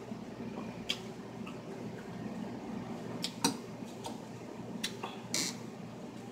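Metal fork clinking against a glass salad bowl while picking up lettuce: a handful of sharp clicks at uneven intervals, the loudest about halfway through.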